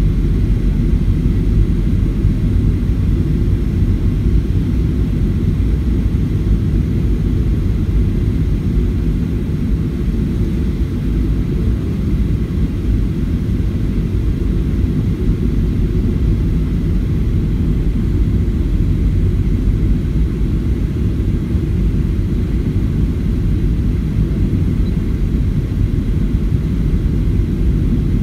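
Steady low rumble of a Southwest Boeing 737's jet engines and rushing air, heard inside the passenger cabin during the final approach to landing.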